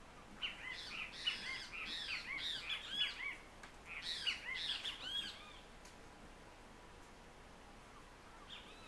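Birds calling: rapid chattering runs of short, arched, high notes in two bursts, the first about three seconds long and the second shorter after a brief pause, then one short call near the end.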